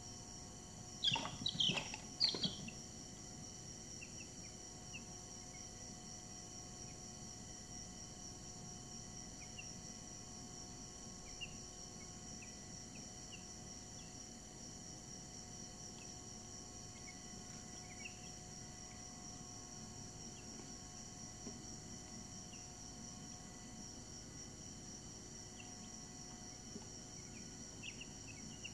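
Week-old Brahman chicks peeping: a few loud falling peeps a second or two in, then scattered faint short peeps, over a steady high-pitched whine.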